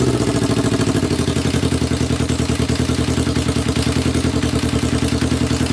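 Kawasaki EX250 parallel-twin motorcycle engine dropping back from a rev and settling into a steady, pulsing idle. It is running rough, which the owner takes for carburetors that still need cleaning.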